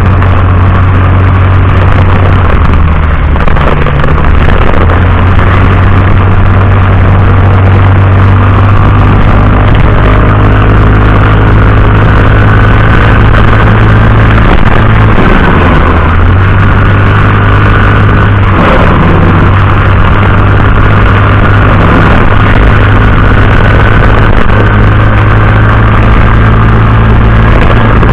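Vehicle driving through very heavy rain, picked up by a dashcam microphone: a loud, steady mix of engine hum with rain and road noise, with the engine note shifting now and then.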